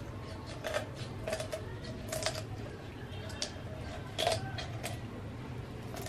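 Kitchen shears snipping through a raw whole chicken's bones: irregular sharp snips, about eight in all, over a steady low hum.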